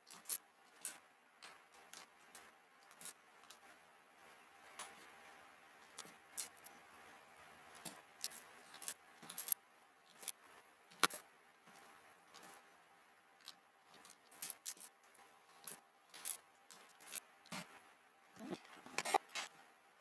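Plastic keycaps of a Cherry mechanical keyboard clicking and clattering as they are handled, in irregular sharp clicks about one or two a second.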